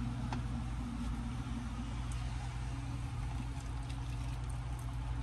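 Steady low mechanical hum, even throughout, with a few faint light clicks.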